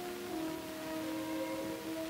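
Background music from the film's soundtrack, playing long held notes.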